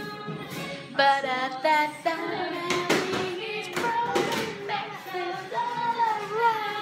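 Children singing along to a song, with a few sharp hand claps.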